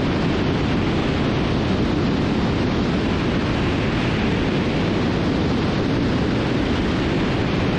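Steady, even rushing in-flight noise of a Cessna T310R twin-engine airplane, airflow and engine sound blended into a constant hiss with no distinct engine tone.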